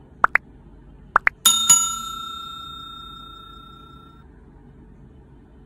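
Subscribe-reminder sound effect: two pairs of quick rising blips, then a bell struck twice in quick succession that rings out for about two and a half seconds.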